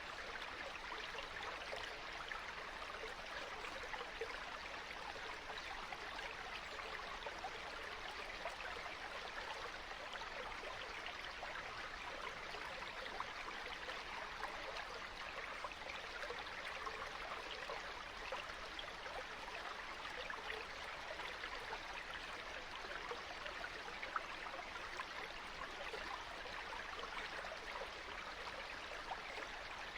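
Stream water running and babbling over rocks, a steady rushing with small splashes and gurgles flickering through it.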